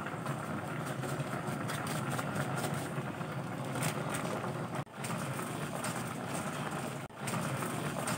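A pot of fish broth boiling on the stove, a steady rushing, bubbling noise that cuts out briefly twice.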